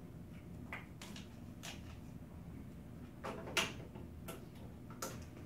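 Scattered sharp clicks and taps of plastic tubing connectors and syringe parts being handled and fitted on a contrast injector, about seven in all, the loudest a little past halfway.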